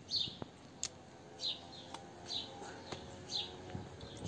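A small bird chirping over and over: a short falling chirp about once a second, with a few faint clicks in between.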